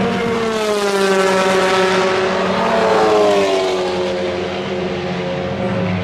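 Turbocharged TCR touring-car engine slowing down, its pitch falling in two long sweeps before holding steady near the end.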